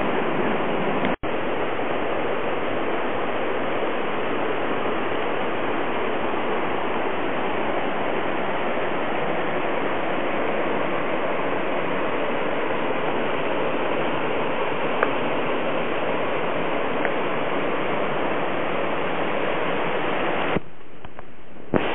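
Waterfall rushing steadily, the stream running high after days of rain. The sound cuts out for an instant about a second in and goes duller and quieter for about a second near the end.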